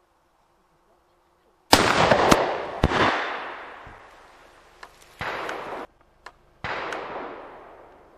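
Black-powder muzzle-loading rifle shots: two loud reports, each trailing off in a long echoing roll, with a sharp crack about a second after the first and a brief, abruptly cut burst between them.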